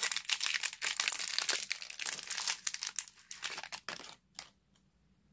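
Crinkling and tearing of a small packaging wrapper as a blind-packed mini toy figure is unwrapped by hand: dense irregular crackle that thins out and stops about four seconds in.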